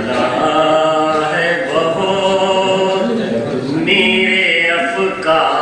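A man's voice chanting devotional Urdu verse in slow, drawn-out phrases, holding long notes that glide up and down between pitches.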